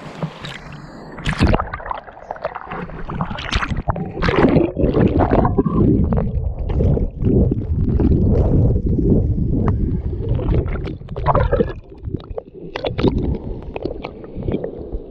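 Sea water splashing and sloshing around a swimmer's handheld camera at the surface; for several seconds in the middle the camera dips under, and the sound turns to a dense, muffled gurgling, before lighter splashes return near the end.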